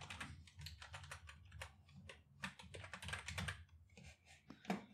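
Typing on a computer keyboard: a quick, uneven run of quiet keystrokes that stops shortly before the end.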